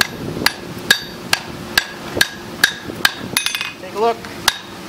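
Blacksmith's hand hammer striking steel at welding heat on the anvil horn, a steady rhythm of about two blows a second with the anvil ringing after each, forge-welding a scarf joint in a ring. Just past three seconds comes a quicker run of lighter ringing taps.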